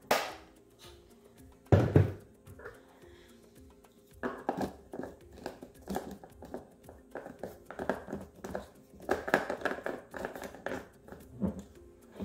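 A plastic blender jar knocks down onto its motor base, then a run of small plastic clicks and crinkles as a lid is fitted and worked onto a plastic tumbler, over quiet background music.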